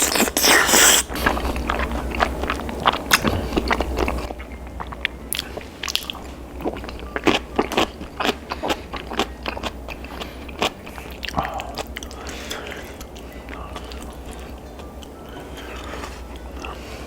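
Close-up biting and chewing of crispy bhc Purinkle fried chicken. A loud crunch comes at the start, then a run of crisp crunches for about ten seconds, and softer chewing near the end.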